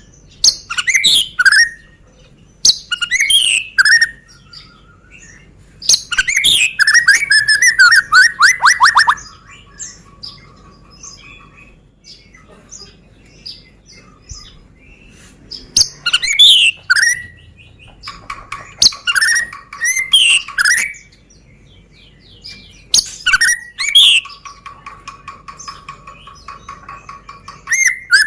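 Medan-type white-rumped shama (murai batu) singing: loud, rapid, varied whistled phrases in bursts several seconds apart, with softer notes and short repeated trills in between.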